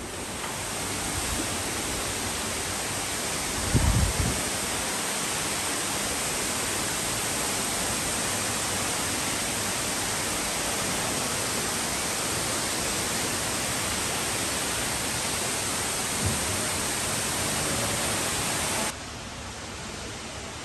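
Steady, loud rush of the Cloud Forest's tall indoor waterfall, with a dull low thump about four seconds in and a fainter one later. Near the end the rush drops off suddenly to a quieter ambience.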